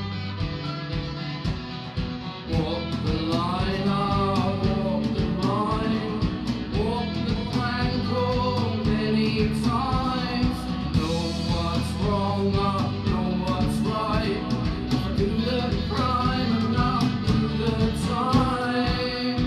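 Live rock band playing: a male lead singer with electric guitars, bass guitar and a drum kit, the singing coming in about two and a half seconds in.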